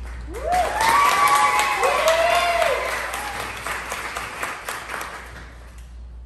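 Small audience clapping, with a few rising-and-falling whoops near the start; the clapping fades away toward the end.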